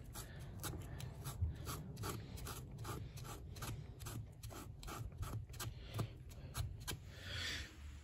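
Rag rubbing and scrubbing on a Zoeller M53 sump pump's cast-iron housing: a quick, uneven run of short scuffs, several a second, as grime is worked off with degreaser.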